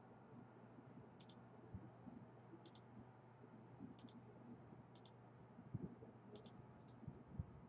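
Faint double clicks, sharp and high-pitched, recurring about every second or so, with a few soft low knocks over a steady low hum; otherwise near silence.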